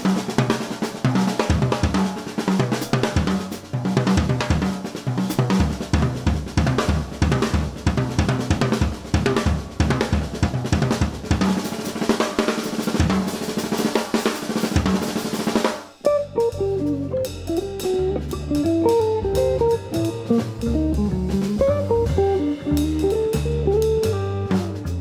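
Drum kit solo with snare, bass drum, hi-hat and cymbals. About two-thirds of the way through it changes suddenly to electric guitar playing single-note lines over upright double bass and drums.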